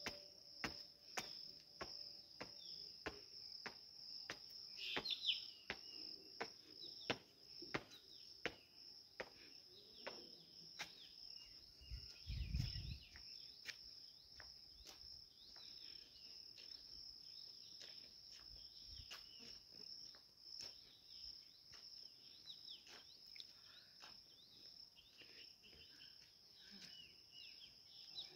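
Steady, high-pitched chorus of insects, with birds chirping now and then. Footsteps tap regularly, about one a second, through the first half, and there is a brief low rumble about twelve seconds in.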